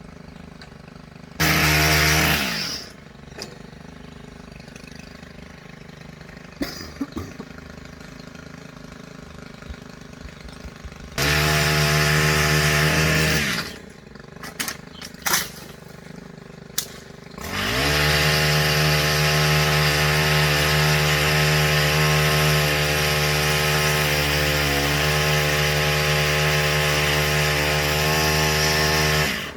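Chainsaw revved in two short bursts that fall away as the throttle is released, then held at full throttle for about twelve seconds, its pitch dipping briefly once.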